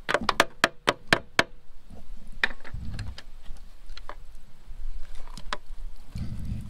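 Hand tool working a rusted bolt out of the tractor engine's cover: a quick, even run of sharp metal clicks, about four a second, that stops about a second and a half in. After it come scattered small clicks and two dull low thuds as the parts are handled.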